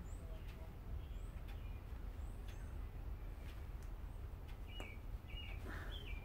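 Small birds chirping in short repeated calls, more often in the second half, over a steady low background rumble, with a few faint clicks.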